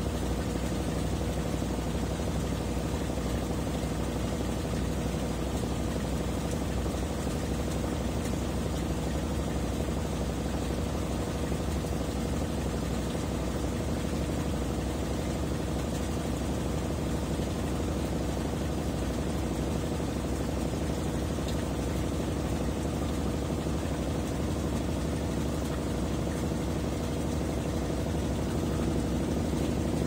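Consul 13 kg top-load washing machine in its spin cycle, the basket full of wet towels spinning fast: a steady motor hum with a thin steady tone over it.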